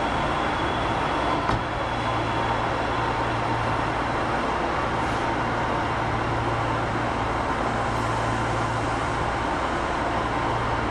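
Osaka Metro 25 series subway train standing at an underground platform, its onboard equipment giving a steady hum under the station's noise, with a low hum that steps up after a small click about a second and a half in.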